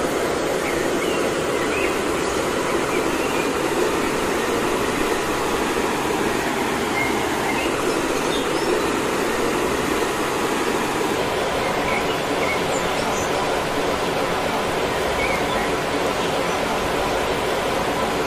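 Steady rush of running water, even and unbroken, with faint high chirps above it.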